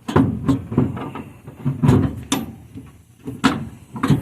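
Irregular metallic knocks and clanks, about eight over four seconds, from a socket wrench and exhaust parts being worked on a car's exhaust.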